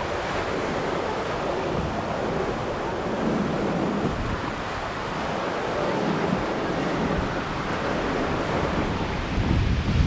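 Pacific surf washing onto a sandy beach among rocks: a steady rush of breaking waves and foam, swelling louder near the end as a larger wave comes in.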